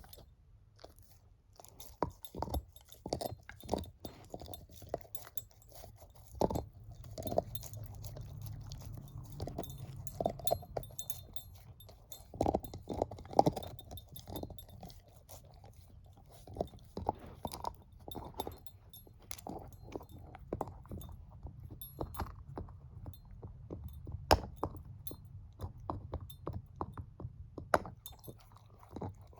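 A shepherd-mix dog gnawing and chewing a bone: irregular loud crunches and cracks of teeth on bone, with wet chewing between them.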